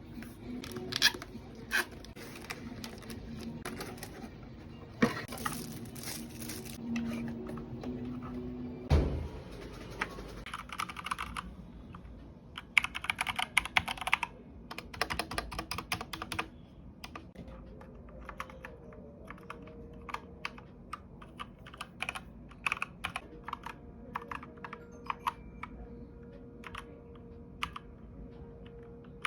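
Cooler Master CK530 V2 mechanical keyboard with tactile brown switches being typed on: irregular keystrokes with fast runs of presses in the middle, and one heavier thump about a third of the way through.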